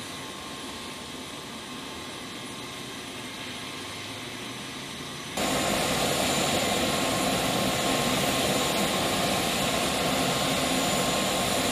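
Steady turbine whine and rush from an MC-130J Commando II standing on the ramp, stepping abruptly louder about five seconds in.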